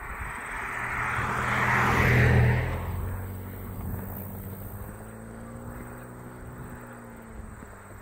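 A car passing by on an asphalt road: its tyre noise and engine hum build to a peak about two seconds in, then fade as it drives away.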